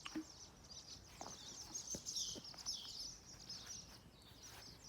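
Small birds chirping and twittering continuously, with a few faint clicks and knocks among them.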